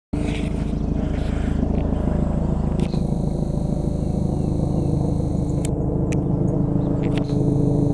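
Helicopter flying overhead: a steady, low rotor beat, growing slightly louder near the end.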